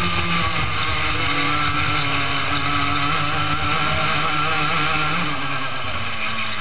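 Daytona Max racing kart engine at full race revs, heard from on board. The pitch climbs and holds through the bends, then falls about five seconds in as the driver lifts off.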